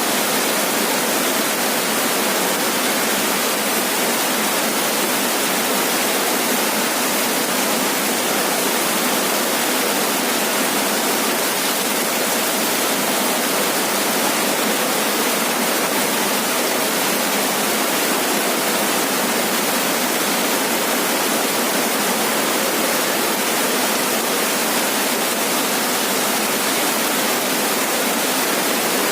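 Heavy rain falling steadily on a roof: a loud, even hiss with no breaks.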